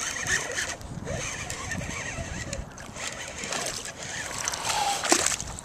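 Hooked largemouth bass splashing and thrashing at the water's surface beside an aluminium canoe as it is reeled in, loudest about five seconds in.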